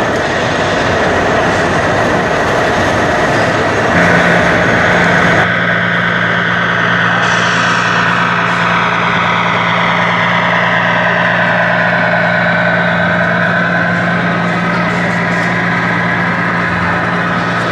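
Engine sound from a 1:4-scale radio-controlled Peterbilt truck: a steady low truck-engine hum sets in about four seconds in and holds, with slowly sliding higher tones above it. Busy exhibition-hall crowd noise is also heard.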